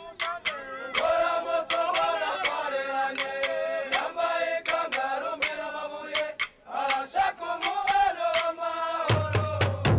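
Voices chanting together over sharp rhythmic strikes, a few per second. About nine seconds in, deep Burundian drums come in underneath.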